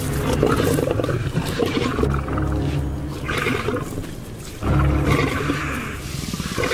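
A big cat growling in two long, loud bouts, the second starting about four and a half seconds in after a short lull.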